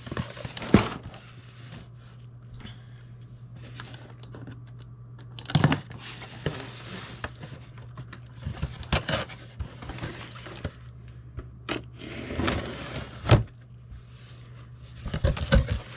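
Utility knife slitting the packing tape on a cardboard box, with scraping, tearing and crinkling of the tape and cardboard, and several sharp knocks as the box is handled and its flap pulled open.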